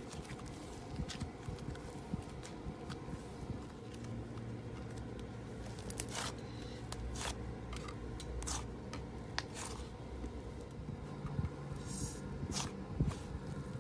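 Slime being worked by hand, with irregular sharp clicks and crackles over a low steady hum.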